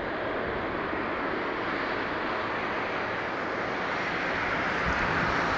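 Boeing 777-300ER's GE90 turbofan engines running at taxi thrust as the airliner rolls slowly past, a steady rushing noise that grows a little louder near the end.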